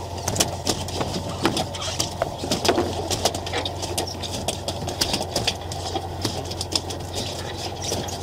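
Fishing boat's engine idling with a steady low hum, with irregular sharp clicks and knocks on top.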